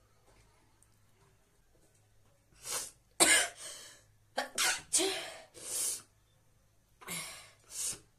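A person sneezing again and again, deliberately provoked sneezes in quick succession. They start about two and a half seconds in; the first sharp sneeze is the loudest, and several more follow over the next few seconds.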